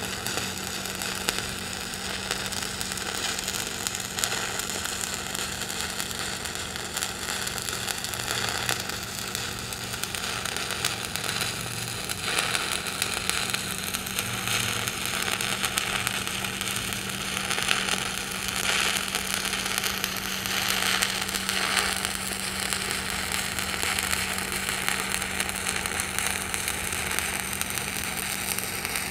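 Stick (SMAW) welding arc crackling steadily as an electrode is run vertically up a steel plate onto its backing strip, with a steady hum underneath.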